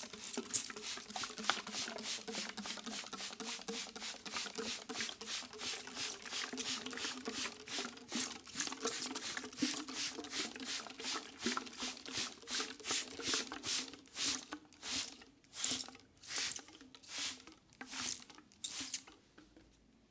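Hands rubbing oiled skin in quick, rhythmic massage strokes, a few a second. The strokes slow and stand apart in the last few seconds, then stop.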